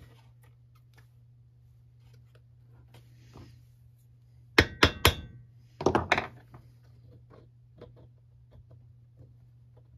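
Clicks and knocks from hand work on a two-stroke leaf blower's carburetor and fuel-line parts. About halfway through come three sharp clicks, then a quick cluster of rattling knocks, with faint light taps before and after. A low steady hum runs underneath.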